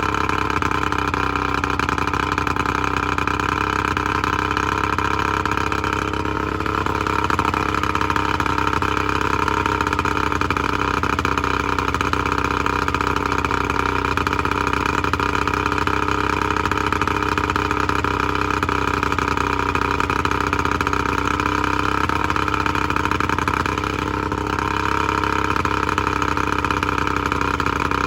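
Evinrude 70 hp two-stroke outboard motor running steadily out of the water on flush muffs, test-run after a new head gasket. The level dips slightly twice.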